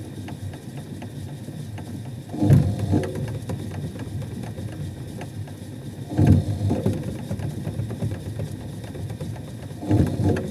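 Hitachi SF-160KJS top-load washing machine's drive running from underneath: motor, V-belt and gearbox pulley turning with a fast, steady clicking rattle, and a louder surge about every four seconds, three times. The machine has a loud noise at the end of spin, which the repairer suspects comes from the clutch/gear assembly slipping down so that steel rubs against the aluminium housing.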